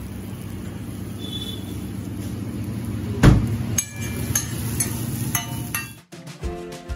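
Low steady traffic rumble, then a loud knock about three seconds in, followed by several sharp metallic clinks that ring briefly. About six seconds in it all cuts off and music begins.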